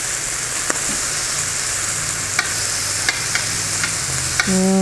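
Sauce-marinated pork riblets sizzling on a Brentwood electric indoor grill, with metal tongs clicking against the grill plate a few times as the meat is turned. Near the end a low hum begins, slowly falling in pitch.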